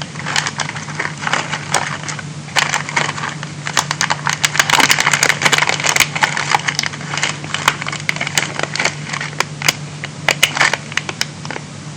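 Crinkling plastic packaging and small parts clicking and rattling as the contents of an electronics kit are handled, over a steady low electrical hum.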